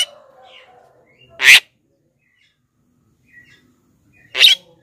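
Javan myna (jalak kebo) calling: loud, very short calls, one at the start, one about a second and a half in and one near the end, with faint short chirps between.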